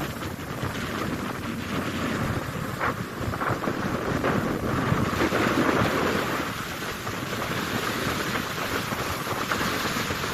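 Strong wind gusting across the microphone over the rush of rough sea surf.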